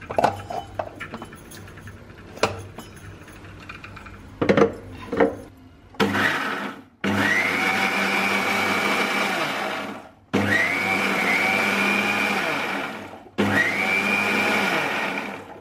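Clinks and knocks as a steel jar is set onto an electric mixer grinder. About six seconds in the grinder starts running in bursts: a brief pulse, then three runs of about three seconds each, its motor whine rising as it spins up each time. It is grinding ginger and garlic with water into a paste.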